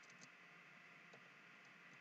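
Near silence: faint room hiss with a few soft, isolated computer keyboard taps.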